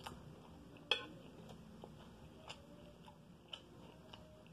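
Quiet eating sounds: a few faint, isolated clicks from chewing and a spoon, the sharpest about a second in.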